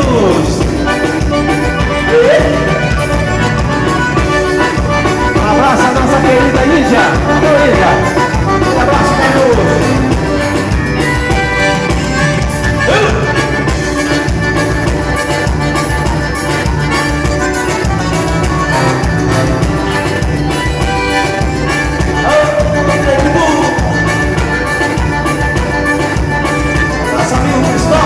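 Band playing Latin-style dance music with a steady beat, loud throughout.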